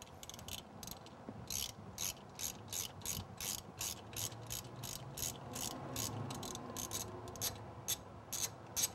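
Ratcheting wrench clicking in a steady run, about three clicks a second, as its handle is worked back and forth to unscrew a spark plug through an extension and spark plug socket.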